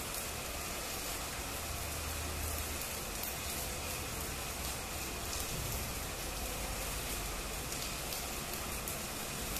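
Stick (electrode) arc welding on a vertical steel plate: the arc gives a steady crackling sizzle with fine, fast ticks and no breaks.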